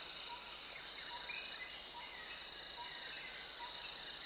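Faint insect chorus of nature ambience: a steady high cricket-like trill, with a soft short peep repeating at even spacing and a few faint chirps.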